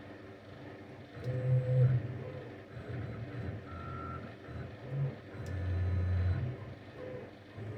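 CNC milling machine's axis drives humming in short start-stop moves during a probing cycle to find X, Y and Z zero, with a short electronic beep near the middle and a few faint clicks.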